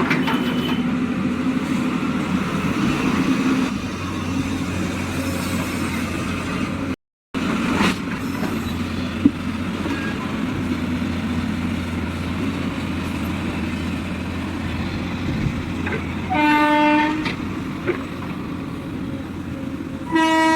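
Excavator's diesel engine running steadily, with a loud horn blowing twice near the end, about four seconds apart.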